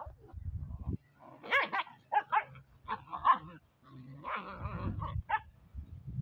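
Two puppies play-fighting, giving short, high barks several times.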